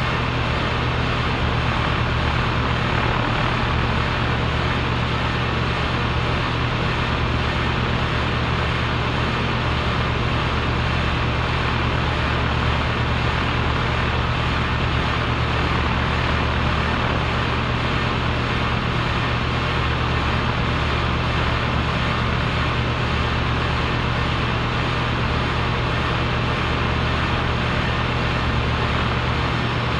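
A compressor running steadily: a constant low hum with an even rushing noise over it, unchanging throughout.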